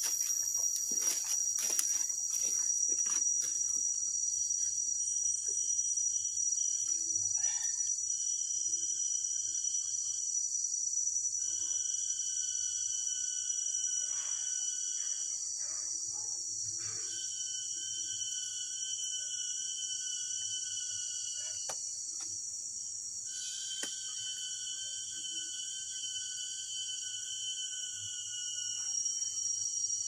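Tropical rainforest insect chorus: a steady high-pitched buzz throughout, with a second, lower-pitched insect call droning in bouts of a few seconds and then stopping, about five times. A few soft clicks come in the first few seconds.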